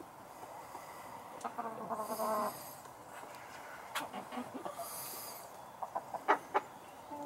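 Hens clucking, with a drawn-out call about a second and a half in, followed by a few sharp taps around the middle and near the end.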